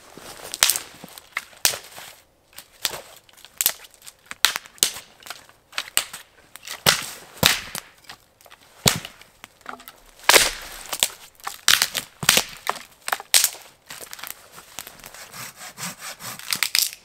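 Firewood being broken and cut with a large knife: a long, irregular run of sharp wooden cracks and knocks, with rasping scraping stretches in the second half.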